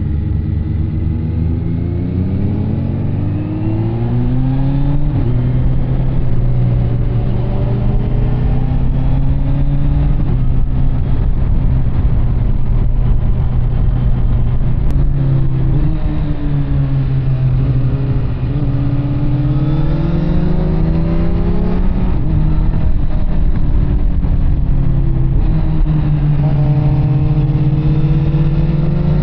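Kawasaki Z900 SE inline-four engine running through an SC Project CR-T carbon exhaust while being ridden. The engine note rises and falls repeatedly as the throttle is opened and closed and the bike goes through the gears.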